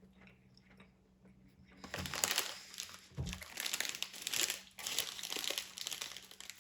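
Food packaging crinkling and rustling as it is handled, starting about two seconds in, with a short break about two-thirds of the way through.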